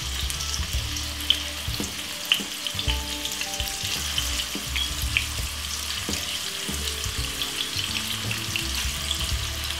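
Halved frankfurters sizzling in a little warm oil in a non-stick frying pan: a steady frying hiss with scattered small crackles and pops, over a low hum.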